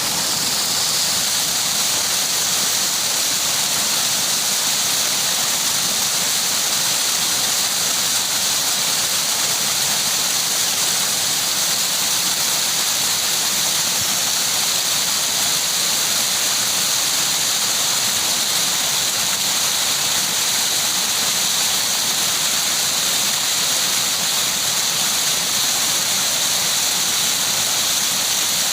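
Flowing water making a steady, unbroken rushing hiss, strongest in the high register.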